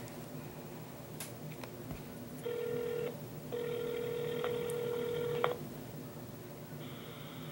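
Outgoing call heard through a phone's speaker: a buzzy ringback tone rings once briefly about two and a half seconds in, then once for about two seconds. Near the end the line opens with a steady phone-speaker hiss.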